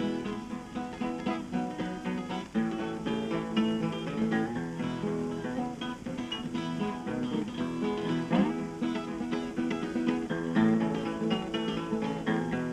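Acoustic blues guitar playing a picked instrumental break in a song.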